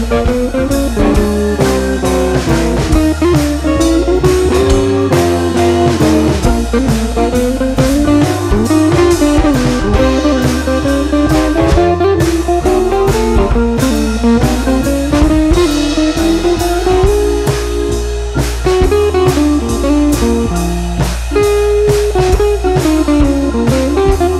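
Background music: a guitar-led blues tune over a drum kit keeping a steady beat.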